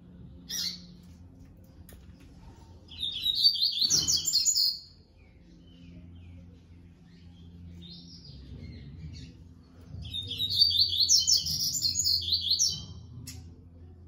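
Yellow-bellied seedeater (coleiro-baiano) singing: two bursts of rapid, high twittering notes several seconds apart, with a short call just after the start and a fainter phrase between them.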